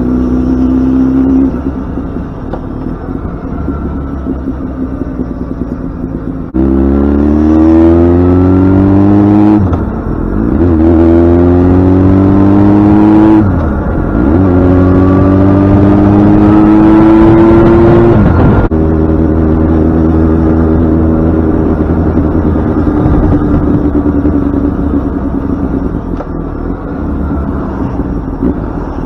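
Yamaha FZ6n's 600 cc inline-four motorcycle engine. After a few seconds of light running, it accelerates hard through three gears, its pitch climbing with each pull and dipping briefly at the two upshifts. Then it backs off the throttle to a lower, steadier note.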